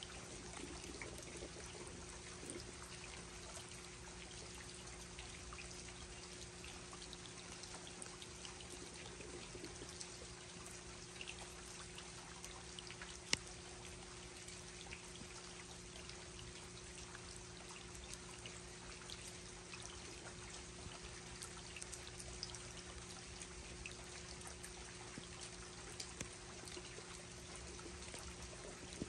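Steady rain falling, with many small drip ticks and running, trickling water, under a faint steady hum. One sharp tick stands out about halfway through.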